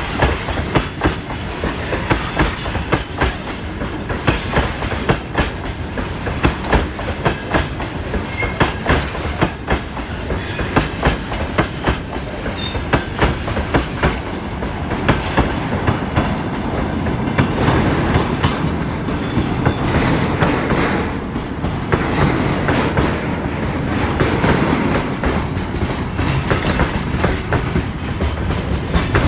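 Freight wagons of a long freight train rolling past close by, their wheels clicking over rail joints over a continuous rolling rumble that grows somewhat heavier about two thirds of the way through.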